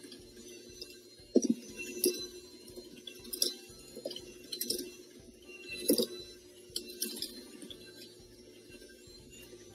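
KitchenAid electric hand mixer running in a stainless steel bowl of batter. Its beaters clink sharply against the metal bowl about seven times at irregular moments over a steady motor hum.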